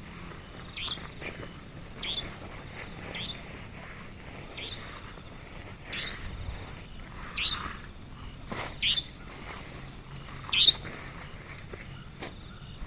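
A bird calling in short, falling chirps, repeated irregularly about once a second, over a faint steady hiss.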